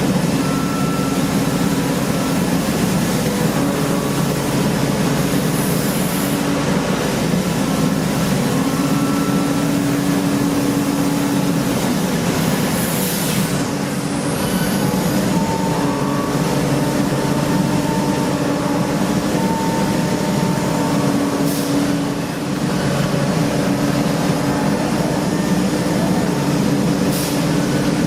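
CNC machining center working an engine block: steady machine noise with whining spindle tones that stop and start and shift in pitch, and a brief high rising whine about halfway through.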